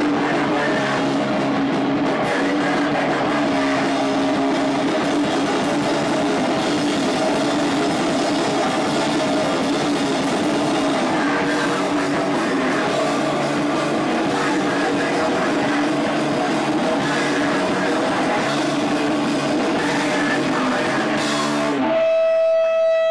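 Punk rock band playing with electric guitar and drum kit at a steady loud level. Near the end the music cuts off and a single steady tone takes over.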